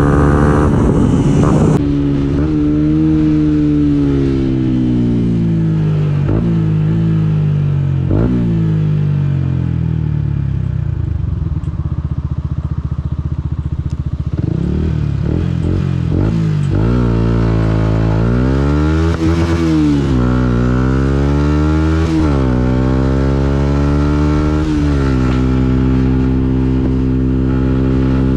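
Yamaha MT-125's single-cylinder four-stroke engine: revs falling as the bike slows, running low and rough around ten to fourteen seconds in, then climbing through the gears, with the pitch dropping at each of three upshifts, and settling to a steady cruise near the end. Wind rush is heavy in the first two seconds.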